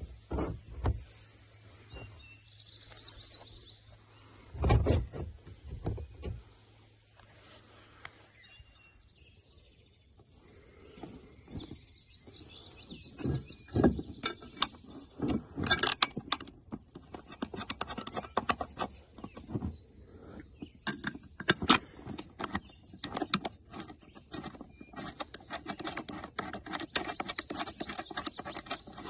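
Irregular clicks, knocks and light metallic rattles from handling and fastening roof-rack crossbars and their mounting screws. Two heavier thumps come about five seconds in, and the clicking turns dense and rapid in the second half.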